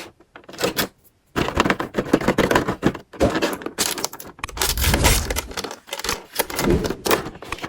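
Hands unboxing small plastic toys: packaging crinkling and tearing, with quick clicks and taps of plastic pieces and a few soft thumps. After a brief pause about a second in, the handling goes on busily.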